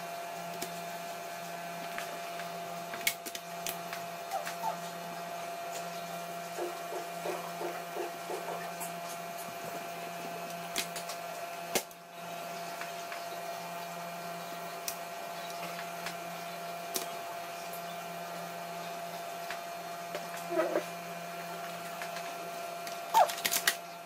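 Scattered small clicks and taps of a multitool screwdriver and screws against a laptop's bottom panel as the screws are driven back in, over a steady hum.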